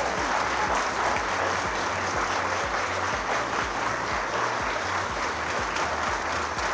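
A crowd of people applauding steadily.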